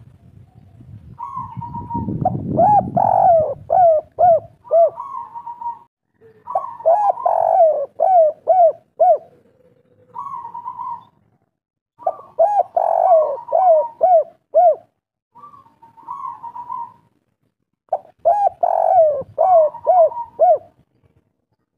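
Spotted dove (derkuku/tekukur, a local 'kuk 3' bird) cooing in about six repeated phrases, each an even opening note followed by a quick run of five or six rounded coos, with short pauses between phrases. A low rumble underlies the first few seconds.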